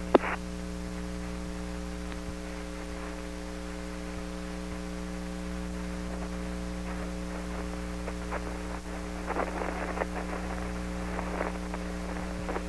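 Steady electrical hum with a buzz of overtones on an open air-to-ground radio audio channel, with no one talking. A sharp click comes right at the start, and a few faint crackles of static come about nine to ten seconds in.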